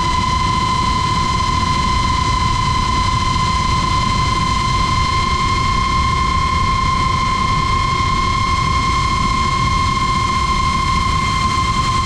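FPV quadcopter's motors and propellers whining at a steady high pitch while cruising at constant throttle, over a low rumble of wind.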